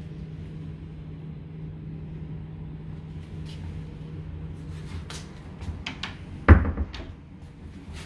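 Cupboard door being shut with a single solid thud, preceded by a few light clicks of handling. A steady low hum underlies it and stops about halfway through.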